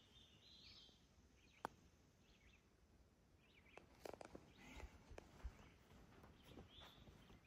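A single sharp click of a putter striking a golf ball, about a second and a half in, over near silence with faint birdsong.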